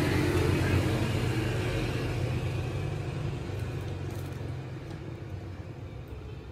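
Engine of a passing motor vehicle, a steady low hum that slowly fades away as it moves off.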